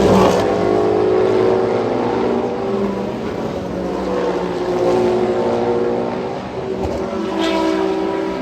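Race car engines running on the circuit, their notes rising and falling as cars pass by, with a swell about halfway through and another near the end.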